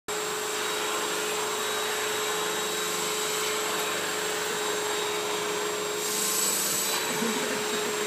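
Vacuum cleaner running steadily, its hose nozzle being drawn over a cat's fur, with a steady hum under the suction hiss. About six seconds in the hiss turns brighter for about a second.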